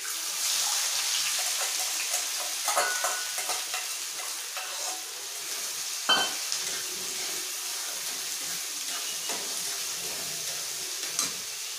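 Chopped onions dropped into hot mustard oil and cumin seeds in a steel kadhai: a sizzle that starts suddenly and settles into steady frying, with a metal spatula scraping and clicking against the pan as they are stirred. One sharp metal clink about six seconds in.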